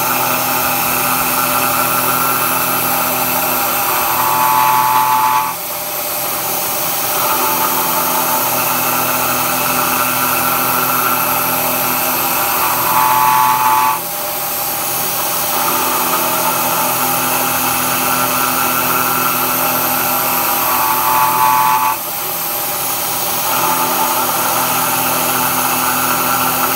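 CNC-converted Bridgeport milling machine cutting hot-rolled steel with a half-inch three-flute carbide end mill, a steady cutting whine and hiss. The cut goes in a repeating cycle about every eight seconds: the higher tone grows louder, then the sound drops off abruptly three times (about 5, 14 and 22 seconds in) and builds back up as the next pass begins.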